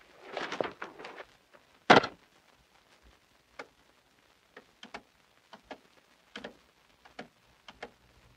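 Buttons being pressed one by one on a push-button desk telephone: about nine short clicks spaced irregularly. Before them come a rustle and a single sharp knock, the loudest sound, about two seconds in.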